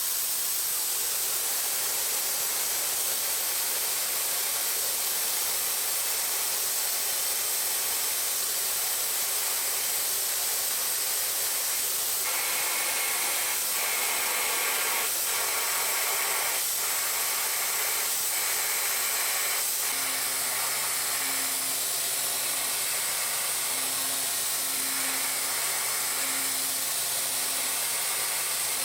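Tongtai VP-8 vertical machining center at work: a steady spraying hiss, with a few sharp clicks about halfway through. A low steady hum and a pulsing low tone join in the last third.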